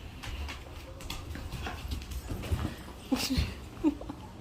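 A dog whimpering, with a few short whines about three seconds in and another just before the end.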